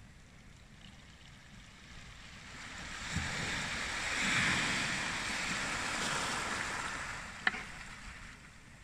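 A small wave washing up a pebble beach: the hiss of water on shingle swells about three seconds in, peaks near the middle and fades away, with one short sharp click near the end.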